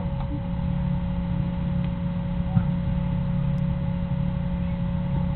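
Steady low rumble of outdoor background noise with a faint steady hum; no distinct events.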